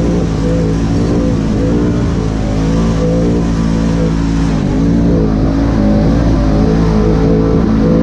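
Polaris RZR side-by-side's engine running, its pitch rising and falling as the throttle is worked.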